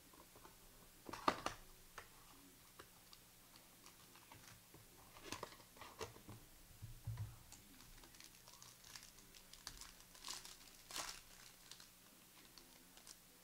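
Sports trading cards and their pack wrappers being handled: scattered soft crinkles, taps and slides, with the loudest rustles about a second in and again around ten to eleven seconds in.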